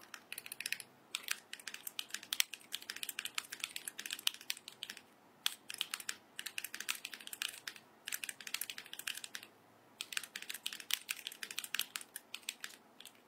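Typing on an H75S mechanical keyboard fitted with switches and keycaps: quick runs of key clacks broken by short pauses.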